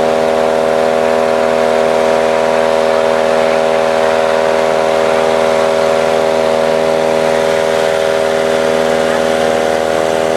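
Machine running steadily at constant speed, a loud drone that holds one pitch with several overtones.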